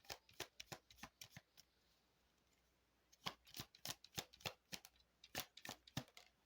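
A deck of fortune-telling cards being shuffled by hand: soft, quick card snaps in two runs, with a pause of about a second and a half between them.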